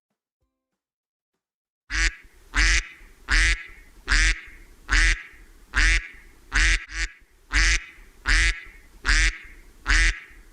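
Duck quacking: about a dozen loud, nasal quacks at a steady rhythm, roughly one every three-quarters of a second, starting about two seconds in after silence.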